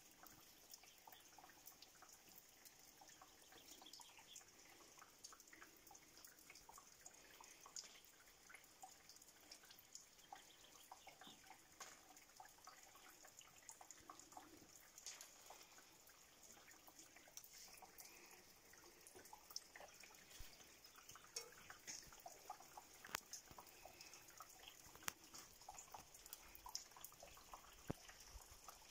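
Rain falling, faint, with a steady high hiss and many separate drops ticking irregularly.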